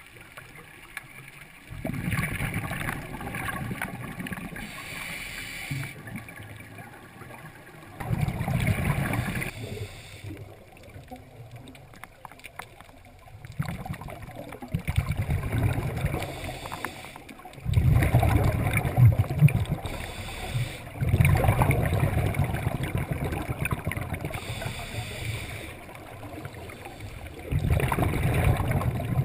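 Scuba diver's breathing heard underwater: the regulator's exhaust bubbles rush out in low bursts of two to four seconds, one per exhalation, about every five or six seconds, with quieter gaps while the diver inhales.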